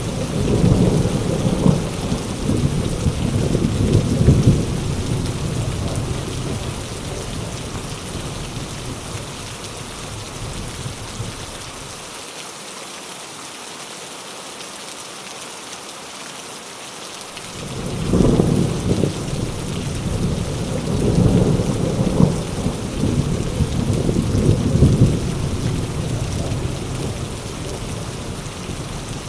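Heavy rain with rolling thunder. Thunder rumbles in the first few seconds and fades, leaving only the hiss of rain for a few seconds past the middle, then a sharp new clap about 18 seconds in starts another long rumble that dies away near the end.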